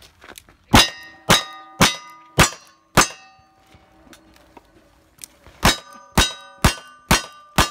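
Ten gunshots in two quick strings of five, about half a second apart, with a pause of over two seconds between the strings. Each shot is followed by the ringing of a struck steel target plate.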